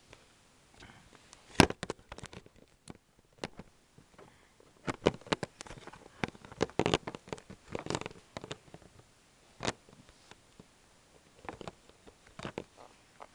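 Irregular clicks, taps and knocks of hands handling things, the loudest about a second and a half in, with a busy run of them from about five to eight seconds.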